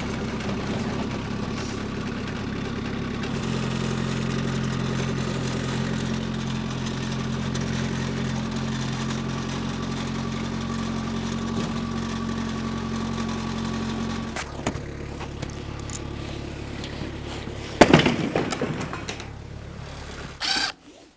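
Engine of a stand-on mini tracked skid steer running steadily, its speed changing a few seconds in and dropping lower about two-thirds of the way through. A loud sudden knock comes about three seconds before the end, with another short loud sound just before it ends.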